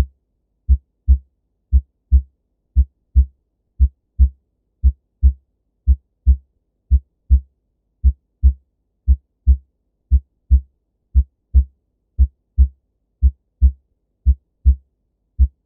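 Human heart sounds: the paired 'lub dub' of a heartbeat, the first and second heart sounds made by the heart valves closing, repeating in a steady rhythm of about one beat a second. The beats stop shortly before the end.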